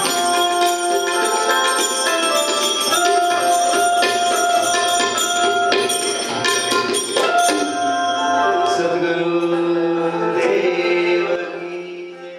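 Indian devotional instrumental music: harmonium and Indian banjo (bulbul tarang) melody over tabla and manjira hand cymbals. The beat stops about seven seconds in, and the held closing notes ring on and fade out near the end.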